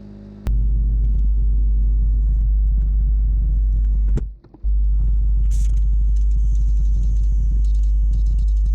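Powder coating gun spraying powder onto a hot aluminium water neck (hot flocking): a steady deep rush of air that starts sharply, cuts off briefly about four seconds in, then starts again.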